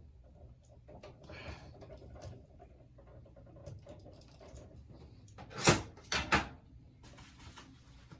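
A single-pole wall light switch being handled and fitted into its electrical box: quiet rustling, then three sharp knocks a little past halfway, the first the loudest.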